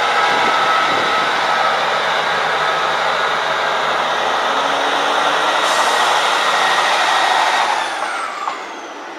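Class 158 diesel multiple unit running close by with its diesel engine and a loud hiss, pulling out of the platform. A high whine comes in about halfway through and falls in pitch as the sound fades near the end.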